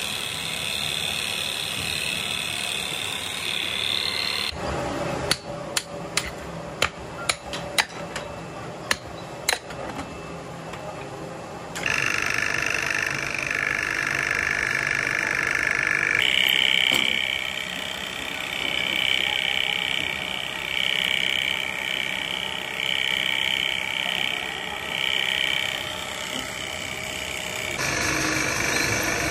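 Belt-driven electric motor of a foundry sand mixer running with a steady whine while moulding sand is worked. A few seconds in comes a run of about eight sharp metal knocks over some five seconds, like a shovel striking the steel trough. The sound changes abruptly several times.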